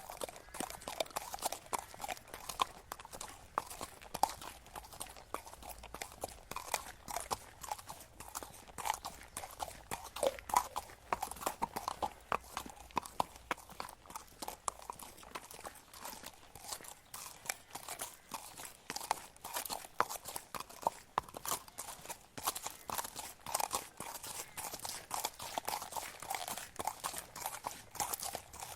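A horse walking on a muddy gravel track: an unbroken run of hoof steps, each a short clop with a gritty crunch of gravel.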